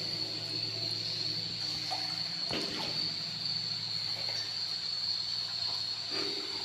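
Dripping brick-tunnel ambience: a steady high-pitched whine over a low hum, with a few faint taps about two and a half seconds in and again near the end.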